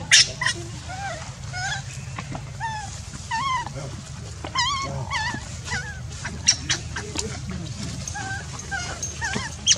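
Baby macaque crying in a string of short, high, arching whimpers, about one or two a second, over a steady low hum.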